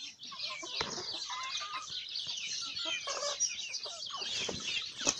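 A flock of chickens clucking and chirping, many calls overlapping without a break. A single sharp knock near the end.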